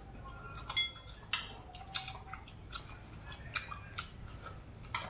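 Eating from a stainless steel tray with a metal spoon and chopsticks: irregular sharp clicks of utensils on metal and mouth smacks while chewing, about one every half second to second. The spoon clinks with a brief ring about a second in.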